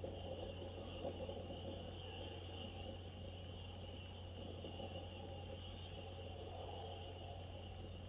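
Steady low electrical hum with a constant high-pitched hiss and faint outdoor background noise, unchanging throughout, with no distinct events.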